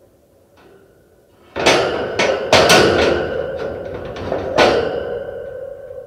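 Wire-mesh metal cage being knocked and rattled: a burst of clattering with several sharp metallic knocks starting about a second and a half in, the metal ringing on and fading after the last knock near the end.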